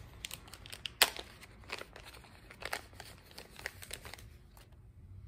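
Crinkling and crackling of a small plastic parts bag as hands handle it and open it to take out the new carburetor jets. Irregular crackles throughout, with one sharp crackle about a second in.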